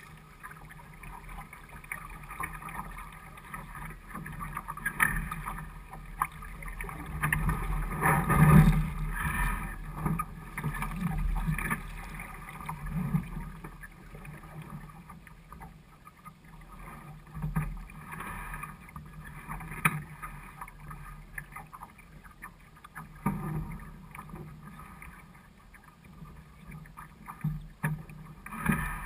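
Water rushing and slapping against the hull of a small sailing dinghy under way, with irregular knocks and clicks from the boat. It swells and fades unevenly and is loudest about a third of the way through.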